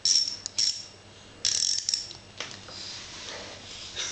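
Ratchet wrench being worked back and forth, its pawl clicking in a few short rasping bursts, the strongest in the first two seconds.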